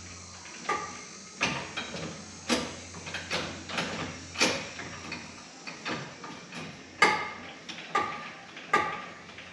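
Irregular sharp metal knocks and clinks, roughly one or two a second, several ringing briefly: hand tools working on the metal parts of an International 1586 tractor. A low steady hum sits under the first half and fades out.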